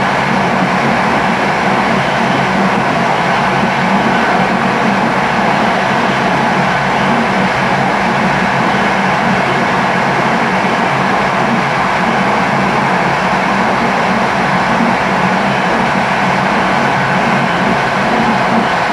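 Steady running noise of a train travelling along the line, heard from its front cab: an even, unbroken rumble of wheels on rail and running gear that neither rises nor falls.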